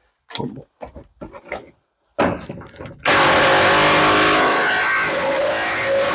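A few short clunks of tool handling, then an impact gun hammering steadily on a seat-belt anchor bolt, starting abruptly about three seconds in and running loud and continuous.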